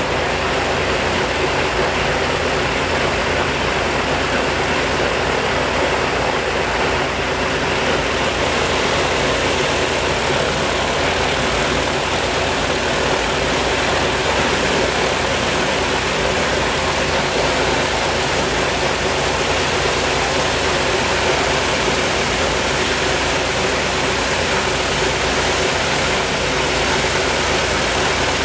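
The left Shvetsov ASh-82T 14-cylinder twin-row radial engine of an Ilyushin Il-14T running steadily on the ground, propeller turning, at an even, unbroken level.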